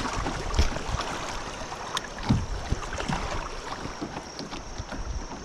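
Rushing, splashing whitewater of a river rapid as a kayak runs through it, with scattered short knocks and wind buffeting the microphone.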